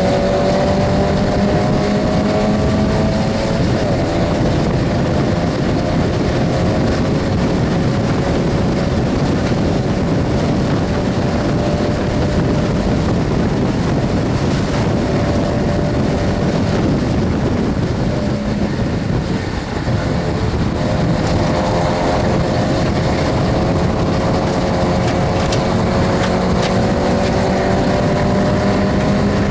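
Stock Mazda MX-5 Miata's four-cylinder engine running at high revs under hard acceleration, heard from inside the cabin over heavy wind and road noise. The pitch climbs slowly, dips briefly about two-thirds of the way through, then climbs again near the end.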